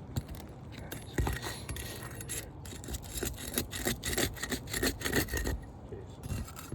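Asphalt roof shingles being worked loose: a run of quick scraping, rasping strokes from about a second in, easing off near the end. The shingles are being separated from their sealed courses, and some tear through as they are lifted.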